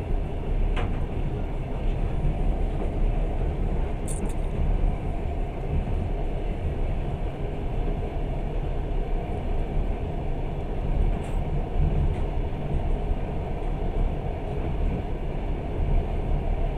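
Passenger train running along the line: a steady low rumble of wheels on rails heard from inside the carriage, with a few short clicks.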